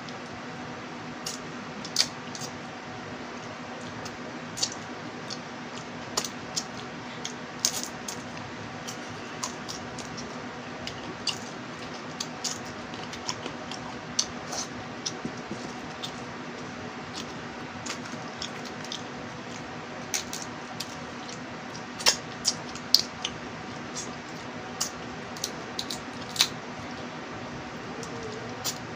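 Small boiled crabs being eaten with bare hands: shells cracking and crunching as they are pulled apart and chewed, in irregular sharp clicks with wet squishing, over a steady low hum.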